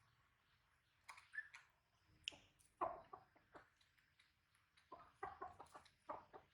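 Faint, scattered short animal calls mixed with a few clicks, in small clusters about a second, three seconds and five seconds in.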